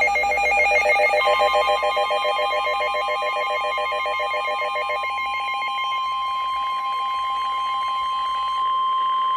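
Emergency alert tones: a rapidly pulsing, bell-like alarm ring that slowly fades, joined about a second in by a steady single-pitch tone near 1 kHz, the 1050 Hz warning alarm tone used ahead of National Weather Service warnings on the Emergency Alert System.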